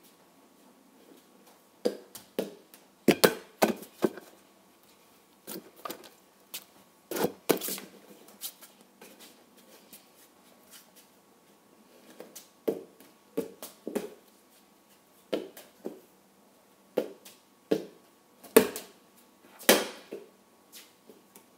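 Flat plastic soccer ball being kicked with bare feet and dropping onto a tiled floor: irregular dull slaps and bounces in short clusters of one to three touches, with pauses between attempts. A faint steady tone runs underneath.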